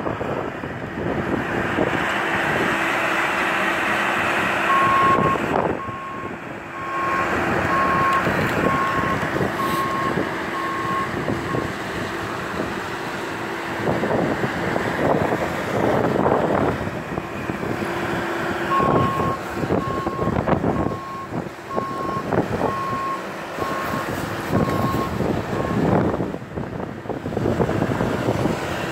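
A truck's reversing alarm beeping about once a second, in two runs of several seconds each, over the steady hum of a running engine.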